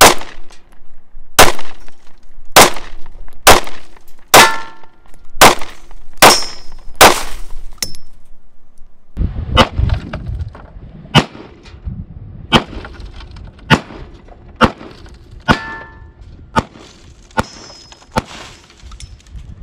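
Standard 9mm handgun fired shot after shot, about one shot a second; a short metallic ring follows a few of the shots. About nine seconds in, the shots sound more distant and a low wind rumble sets in on the microphone.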